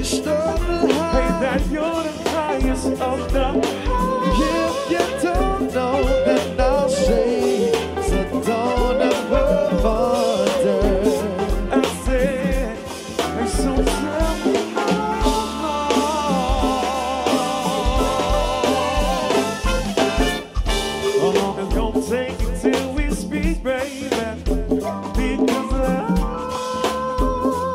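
Live R&B band music: a singer's voice with vibrato over a drum kit with a steady kick-drum beat.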